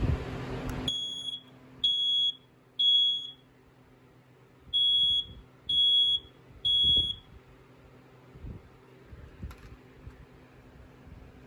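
BRK 4120B ionization smoke alarm sounding on test: a high-pitched beep about half a second long, three times at an even pace, a short pause, then three more. This is the temporal-3 alarm pattern.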